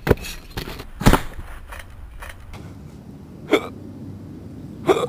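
A man hiccupping, two sharp hiccups about a second and a half apart in the second half. Before them come a few short clicks or knocks, the loudest about a second in.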